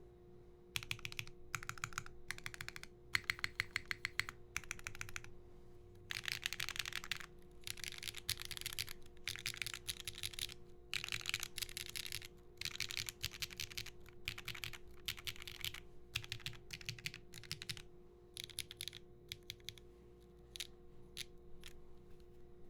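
Mechanical keyboard typing: a Linworks x VKG Whale TKL with an aluminium plate, stock HMX Sunset Gleams switches and GMK Dualshot keycaps. It comes in bursts of fast keystrokes separated by short pauses, thinning to slower, separate key presses near the end.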